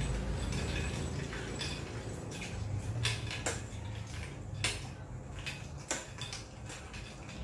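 Ice cubes clinking against a large glass punch bowl as the punch is stirred: scattered light clinks and taps over a low steady hum.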